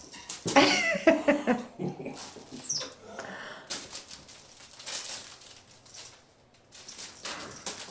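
White-faced capuchin monkey calling during play: a quick series of pitched calls in the first two seconds, then quieter sounds with a short rising squeak about three seconds in.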